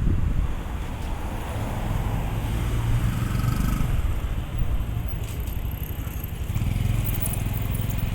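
Road traffic passing: motor vehicle engines running with a low rumble that swells twice, a few seconds apart.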